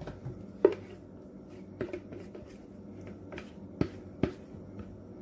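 Spatula scraping the last of the liquid out of a plastic mixing bowl, knocking against the bowl a handful of times; the loudest knock comes under a second in.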